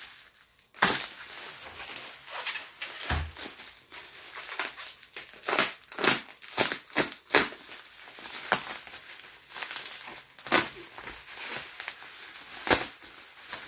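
Bubble wrap crinkling and crackling in irregular bursts as it is handled and cut open with a knife.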